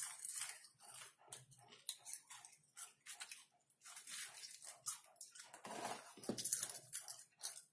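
Close-miked crunching and chewing of caramel popcorn in quick, irregular crackles, with popcorn rustling as a hand scoops from the bowl. The sound grows louder and fuller for a moment about two-thirds of the way through.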